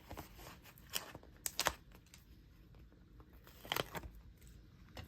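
Faint peeling and crinkling of a rubber cling stamp and its image sticker being pulled from their backing sheets, with a few sharp clicks or taps about a second in, around a second and a half, and near four seconds.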